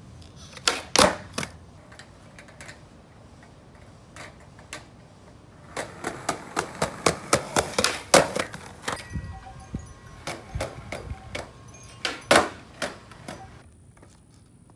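Skateboard ollies on concrete pavers: sharp wooden clacks of the tail popping and the board landing. A few loud clacks about a second in, then a dense run of quick clacks and clicks midway with the loudest hit near its end, and another loud clack later on.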